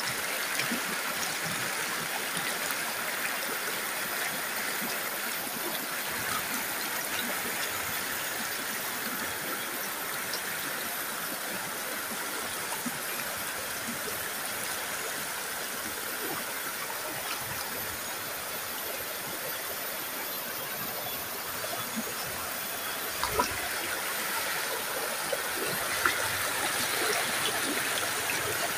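Shallow rocky stream rushing and splashing over boulders, a steady rush of water, with a couple of brief clicks near the end.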